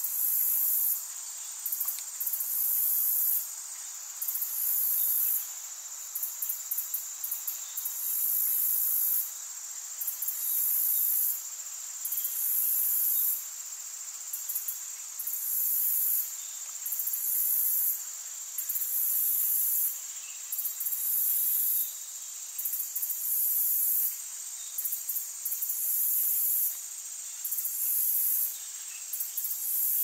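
Forest insects chirring: a steady high-pitched trill with louder pulses of buzzing over it, each about a second long and coming every second or two.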